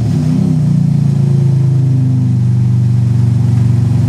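Turbocharged 2.7-litre V6 of a 2006 Hyundai Tiburon coming back down from a quick rev just at the start, then idling steadily. The engine is just after its first start on a custom turbo kit, and the crew thinks it is running rich.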